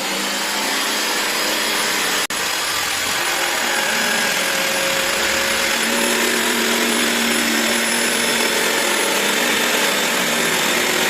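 Electric jigsaw running steadily as it cuts through a sheet of drywall (gypsum plasterboard), with a momentary break about two seconds in.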